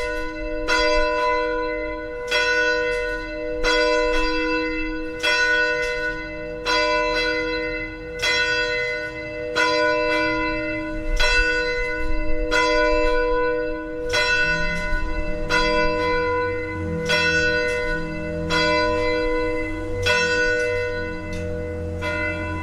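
Downtown tower bells ringing, a steady run of strokes about every two-thirds of a second, each ringing on into the next. A low rumble sits underneath in the second half.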